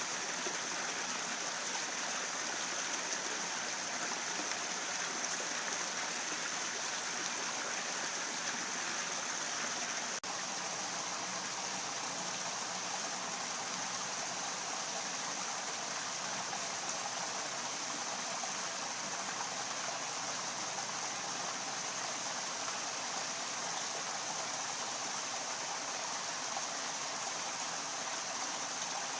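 Steady rush of running water, even and unbroken, with a single faint click about ten seconds in.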